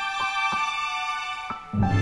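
Background music: held high melodic notes with a few short plucked notes. A fuller, louder passage with a bass line comes in near the end.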